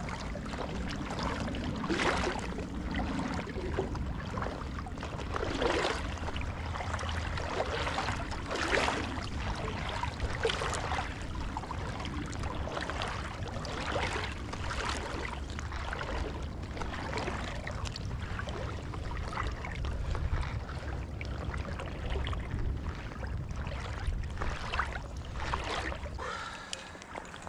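Water lapping and splashing in small irregular waves, over a steady low rumble that drops away near the end.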